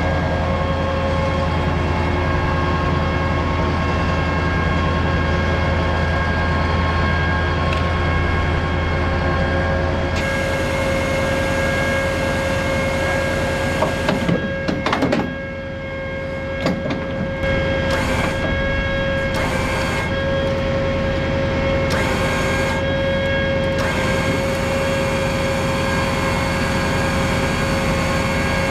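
Steady running of an M270 MLRS tracked launcher vehicle, with a steady whine held over it during a rocket-pod reload. A few short knocks come about halfway through.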